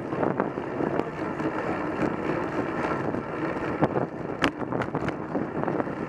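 Wind buffeting the microphone of a handlebar camera on a moving road bike, over the rolling noise of the bike on tarmac. A few sharp clicks come about four to five seconds in.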